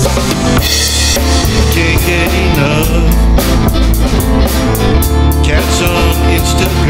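Music: a song with a steady drum-kit beat, bass and guitar.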